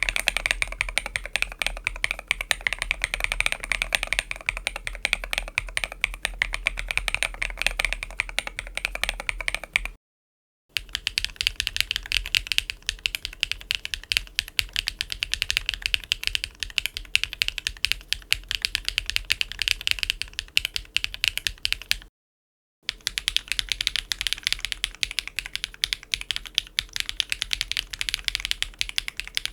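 Fast, steady typing on a mechanical keyboard fitted with Keygeek Muse linear switches: a dense run of keystroke clacks. It comes as three separate takes, each cut off abruptly, and each sounds a little different from the others.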